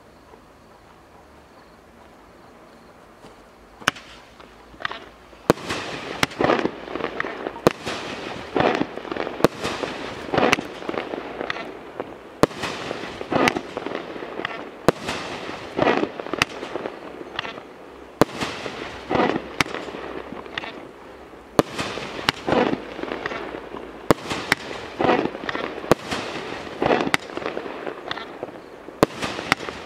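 A 24-shot, 500-gram consumer firework cake firing in rapid succession. Starting about four seconds in, shots go off about once a second, each a sharp report followed by a brief rush of sound.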